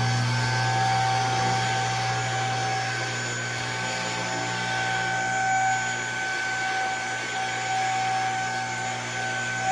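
Electric motor running with a steady hum, typical of a vehicle lift's hydraulic pump unit raising a Jeep.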